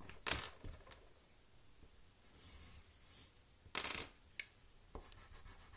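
A pencil handled on a wooden desk: two sharp clicks with a short metallic-sounding ring, about a third of a second in and near four seconds in. Between them a soft pencil scratch on paper while a circle is drawn.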